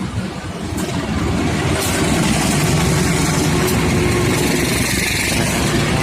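Diesel-hauled passenger train coming up and passing close by: locomotive engine running, with the rumble of wheels on the rails. It gets louder over the first second, then stays loud and steady.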